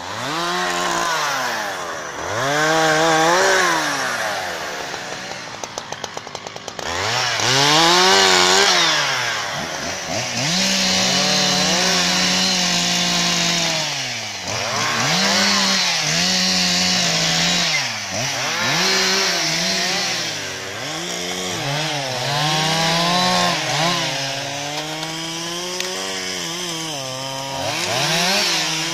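Husqvarna 365 two-stroke chainsaw cutting branches and fallen trees, revving up into each cut and dropping back again and again. It falls to a pulsing idle for a moment about five seconds in, and holds high revs through a longer cut around the middle.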